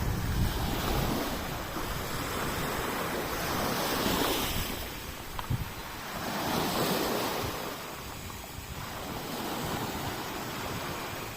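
Ocean waves washing onto the shore, swelling and ebbing every few seconds, with wind buffeting the microphone in a few low thumps.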